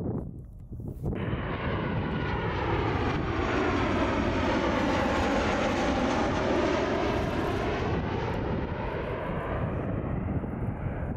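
Airliner passing close by. Its engine noise cuts in about a second in, swells with a sweeping, phasing whoosh as the plane goes past, and thins out near the end.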